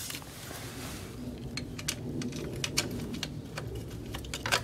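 Scattered light clicks and clinks of small metal parts and tools being handled while a part is fitted to a moped, with a louder click near the end.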